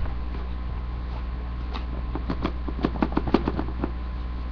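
Plastic wrapping on a tablet box crinkling and crackling as it is handled and peeled off: a single knock at the start, then a cluster of quick crackles about two to four seconds in, over a steady electrical hum.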